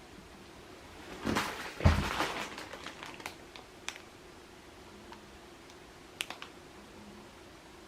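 Handling noises: a short burst of rustling and clicks with one heavy knock about two seconds in, then a few scattered clicks.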